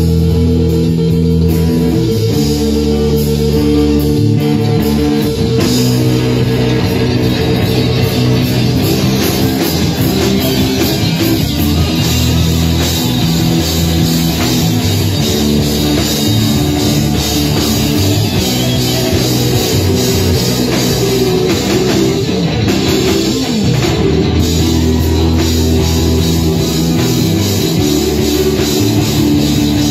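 Live electric band playing a rock-blues groove: electric guitars over bass and a drum kit, loud and unbroken.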